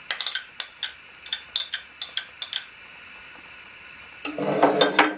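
A spoon clicking and scraping against a dish as minced mushroom mass is scooped: a run of quick light clinks over the first couple of seconds, then a louder clatter of dishes near the end.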